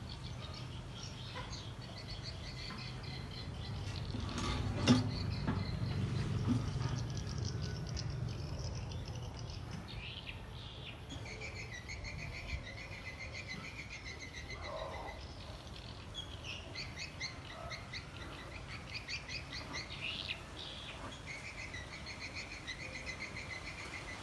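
Small birds chirping and trilling on and off, in short high calls and quick rattling runs. There is a single sharp click about five seconds in, over a low hum that swells for a few seconds around it.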